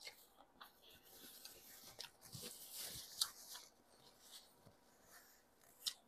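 Faint chewing and mouth noises while eating braised pork, with a paper napkin rustling against the mouth for a couple of seconds in the middle and a few sharp clicks, the sharpest just before the end.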